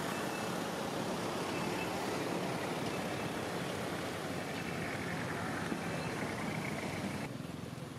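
A steady motor-vehicle rumble. About seven seconds in, the sound turns quieter and duller.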